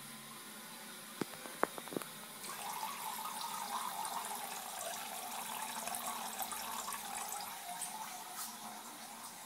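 A cat urinating into a toilet bowl: a steady trickle of liquid into the water starts about two and a half seconds in and lasts about six seconds. A few light clicks come just before it.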